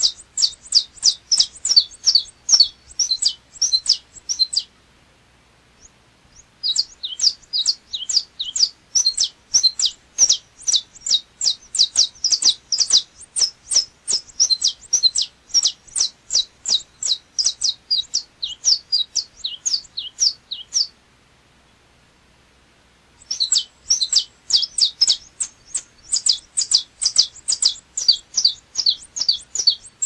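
Saffron finch (canário-da-terra) singing: long bouts of fast, high repeated notes, about five a second, broken by two pauses of about two seconds.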